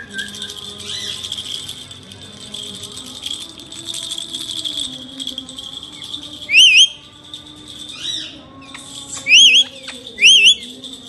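Indian ringneck parakeet giving about four short, shrill calls in the second half, each sharply rising and falling in pitch, the loudest events. Under them runs a steady high buzz.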